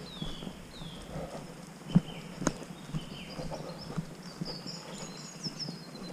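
Footsteps of a walker on a woodland dirt path, an even pace of about two steps a second, with two sharper knocks about two seconds in. Birds sing throughout with short, high, falling calls.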